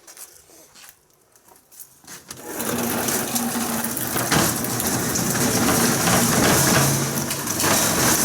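A small electric motor starts about two and a half seconds in and runs steadily, whirring with a strong hiss.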